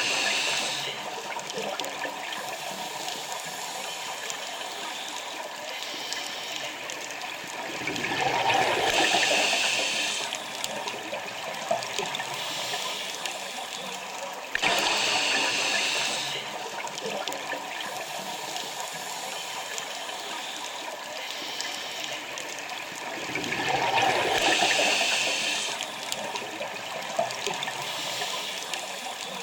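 Scuba diver breathing through a regulator underwater, in a slow cycle about fifteen seconds long. Each breath is a sudden sharp hiss of inhalation, followed several seconds later by a swelling rush of exhaled bubbles; the cycle comes twice.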